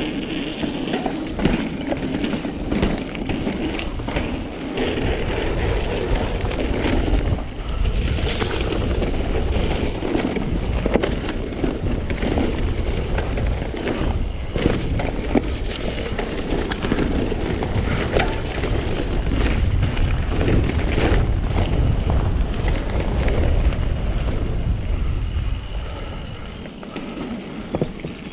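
Mountain bike ridden over a rough trail: a continuous heavy rumble with rattling and frequent sharp knocks from the bike, easing off a couple of seconds before the end.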